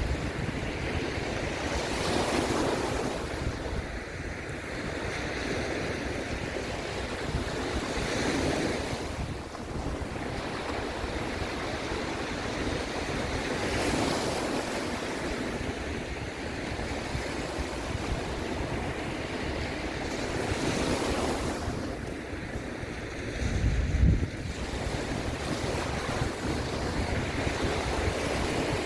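Sea waves washing in and out, swelling about every six seconds, with a steady sea breeze blowing across the microphone. About three-quarters of the way through, a gust buffets the microphone with a brief low rumble, the loudest moment.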